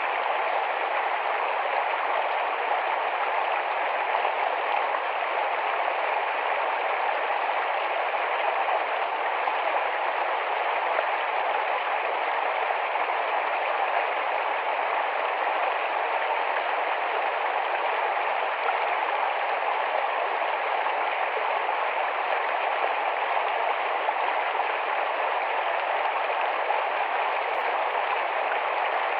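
Rapid, shallow forest stream flowing, a steady, unbroken rush of babbling water.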